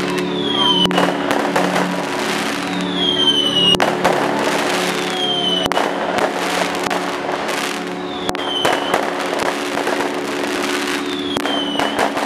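Fireworks display: a run of bangs and crackling bursts, with several short whistles falling in pitch. Steady background music carries on underneath.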